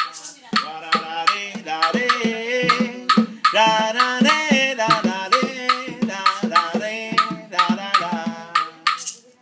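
Guaguancó rumba: a man singing a long, wavering melodic line over steady hand-drum strokes and shaken maracas.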